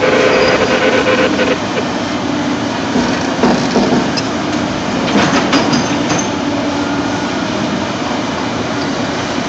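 Caterpillar 330 hydraulic excavator's diesel engine running under load. A steady high note eases off about a second and a half in. Several knocks and scrapes follow around the middle as the steel bucket works against a heavy concrete block.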